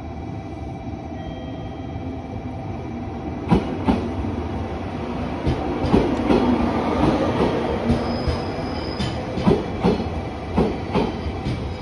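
JR Kyushu 817 series electric multiple unit running into the platform. Its rumble grows as it comes closer, then its wheels clack regularly over the rail joints as the cars pass. There is a brief high squeal about eight seconds in.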